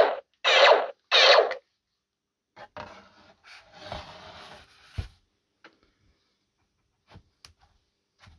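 Prop Colonial Blaster's built-in sound module playing its electronic firing effect as the trigger is pulled: the end of one shot, then two more, each about half a second long. Then the blaster is slid into its holster, with rubbing and scraping, a knock about five seconds in, and a few faint clicks near the end.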